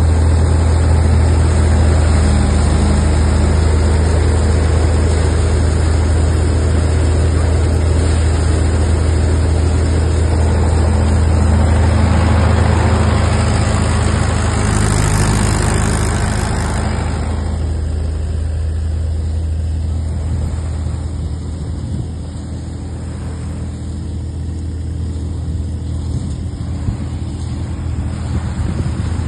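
Mahindra 475 DI XP Plus tractor's diesel engine running steadily at a fixed speed, powering a paddy thresher, a continuous low hum with the machine's dense mechanical noise on top. About two-thirds of the way through the higher part of the noise falls away and mostly the low engine hum remains.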